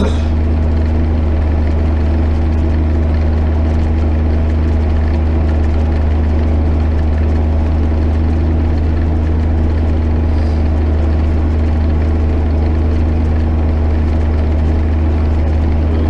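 JCB Fastrac 8250 tractor's six-cylinder diesel engine running steadily under load while pulling a plough, a constant deep drone with a steady hum above it, heard from inside the cab.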